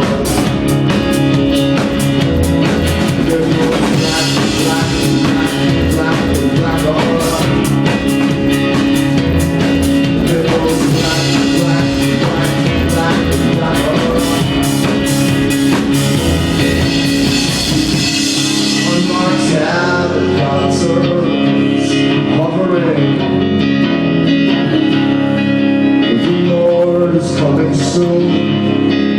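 Live band of drum kit, stand-up bass and guitar playing a rock song. About two-thirds of the way through, the drums and bass drop out, leaving the guitar with a few light cymbal hits.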